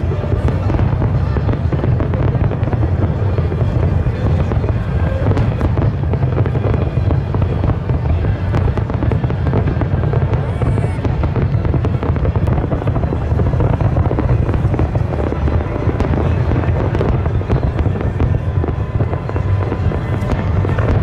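Aerial fireworks display with many shells bursting in quick succession: a continuous low rumble of booms with crackling over it and no let-up.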